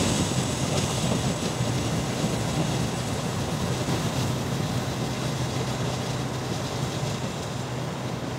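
Steady cabin drone of a Cessna Grand Caravan's turboprop engine and propeller as the plane descends, easing slightly quieter over the seconds.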